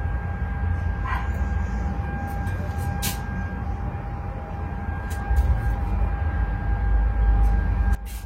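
Car running at idle while the new headlight is tested: a steady low rumble with a faint steady whine above it, cutting off suddenly about eight seconds in.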